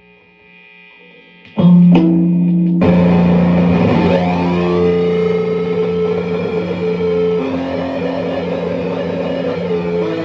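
Electric guitar played through an EarthQuaker Devices Data Corrupter pedal. After a faint start, a note is struck about a second and a half in and held loud, with a second attack a second later and a brief sweep in pitch before the tone settles and sustains.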